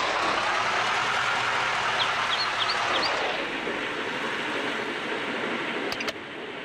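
Steady outdoor rushing noise that eases off about three seconds in, with a small bird chirping four short rising notes just before, and two sharp clicks near the end.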